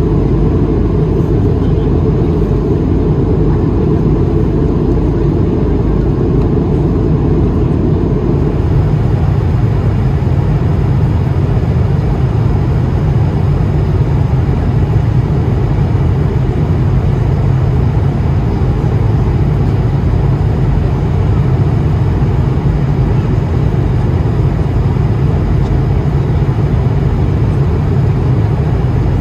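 Loud, steady cabin noise of an Airbus A220-300 airliner in flight, an even rumble and hiss without pauses. Its tone shifts slightly about eight seconds in.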